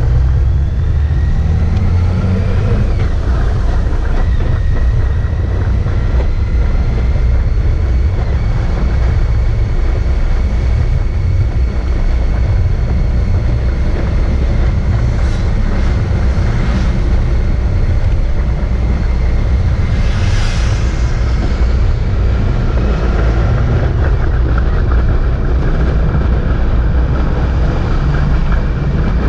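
Motorcycle on the move, heard from a camera mounted on the bike: a loud, steady wind rumble on the microphone over the engine and road noise, with a faint high whine and a few brief hissing rushes past the middle.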